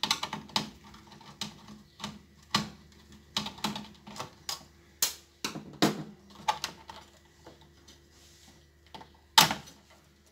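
Irregular sharp clicks and taps, one to three a second, of hands and tools working screws on an LCD TV's power-supply board and its metal chassis as the board is taken out. The loudest click comes near the end.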